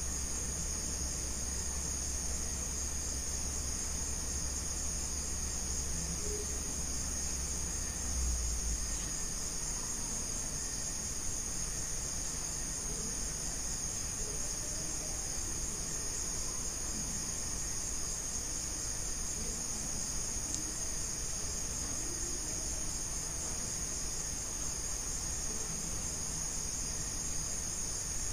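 A steady chorus of night insects, a continuous high trilling. A low hum underneath stops about eight seconds in.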